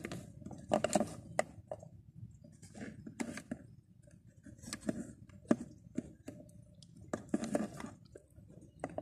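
Handling noise from Shimano Sienna 2500FD spinning reels being picked up, turned over and set down on a tabletop: irregular light clicks and knocks of metal and plastic parts.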